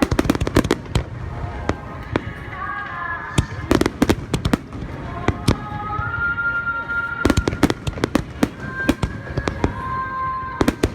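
Fireworks bursting overhead in rapid volleys of sharp bangs and crackles, several times, with short lulls between volleys.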